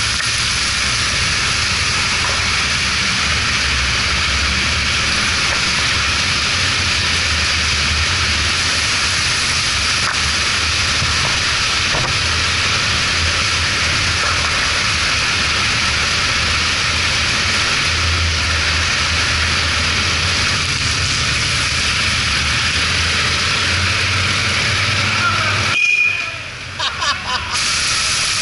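Yamaha XT1200Z Super Ténéré's parallel-twin engine running steadily at riding speed under a loud, steady hiss of tyres on a wet road and dripping water. About two seconds before the end the sound briefly dips and crackles.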